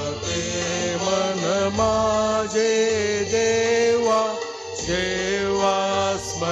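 Church hymn music: a sung melody with long held, wavering notes over steady accompaniment.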